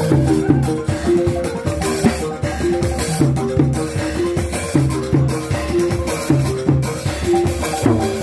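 Balafons, West African wooden-bar xylophones, playing a fast repeating melodic pattern of short struck notes, backed by a drum kit with cymbal.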